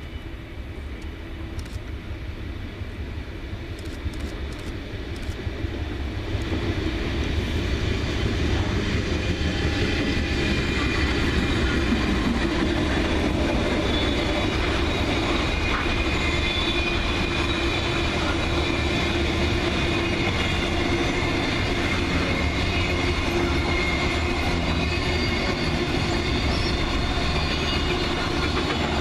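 Intermodal freight train rolling past on the line, its wagons and wheels rumbling on the rails. It grows louder over the first several seconds, then stays steady and loud.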